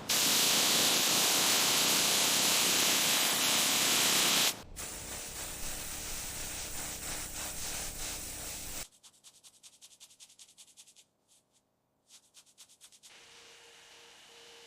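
A loud, even hiss for about four and a half seconds. Then a rougher rubbing noise that stops abruptly about nine seconds in, followed by faint rapid ticking, a brief near-silence, and a faint steady tone near the end.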